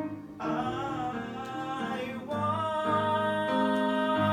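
Live musical-theatre song: keyboard chords accompany a voice that glides between notes, then holds a long sustained note from about halfway through.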